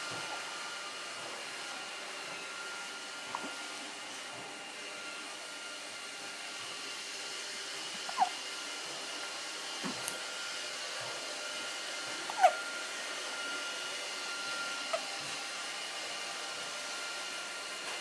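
Hiccups: short, sharp hics that drop in pitch, coming every few seconds (four in all, the second and third the loudest). They sound over a steady whooshing hum, with a single dull knock between the second and third.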